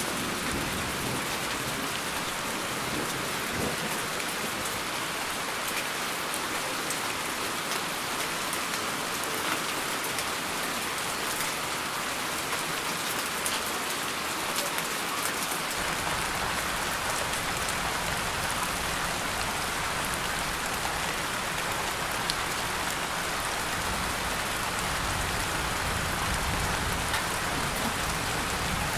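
Steady rain falling, a dense hiss of drops. A low rumble comes in about halfway through.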